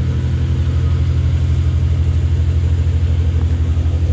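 Nissan GT-R R35's twin-turbo 3.8-litre V6 idling through an Armytrix titanium valvetronic straight-pipe exhaust: a steady, low, evenly pulsing rumble.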